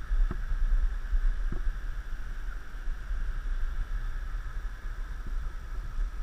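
Wind buffeting a camera microphone as a steady low rumble, over the even rushing hiss of a river below, with a few faint knocks.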